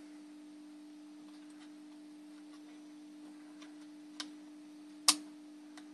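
Small clicks and taps from fingers handling a circuit board while a new capacitor's leads are pushed into its holes: a light click about four seconds in and one sharp click about five seconds in, over a steady hum.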